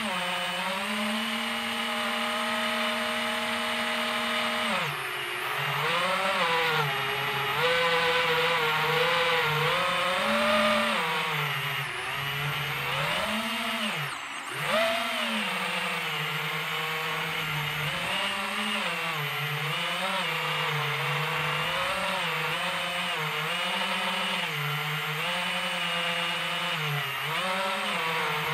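DJI FPV quadcopter's brushless motors and propellers buzzing in flight, the pitch rising and falling as the throttle changes. It holds steady at first, then wavers constantly, with a brief throttle chop about fourteen seconds in followed by a sharp punch back up.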